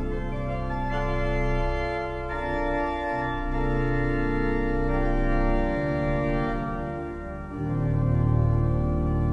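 Church pipe organ playing held chords. About three-quarters of the way through the sound dips briefly, then a deep pedal bass comes in and the full sound grows louder.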